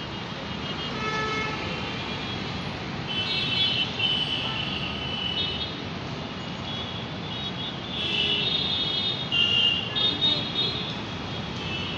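City street traffic: a steady hum of vehicles with car horns honking repeatedly, in a cluster about three to five seconds in and again around eight to ten seconds in.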